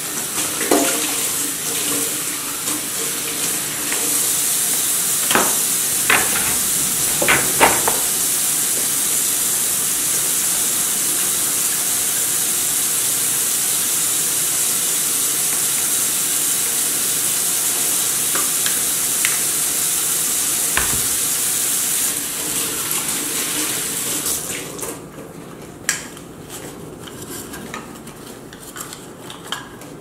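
Kitchen tap running into a stainless-steel sink as coffee grinder parts are rinsed, with a few sharp knocks of the parts against the sink several seconds in. The water shuts off a little before the end, leaving quieter clicks of the parts being handled.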